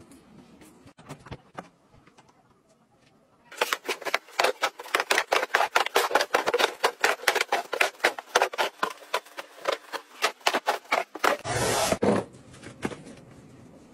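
Cardboard boxes being handled and tossed onto a pile: a fast run of sharp knocks and thuds, several a second, lasting about eight seconds. Near the end comes a short scraping rush as a cardboard box is pushed across a tiled floor.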